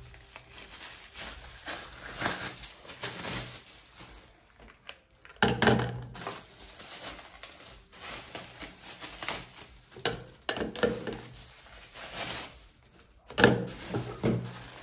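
Clear plastic wrapping crinkling and rustling as wrapped silicone utensils are handled, in irregular crackles with sudden louder bouts about five and a half seconds in and near the end.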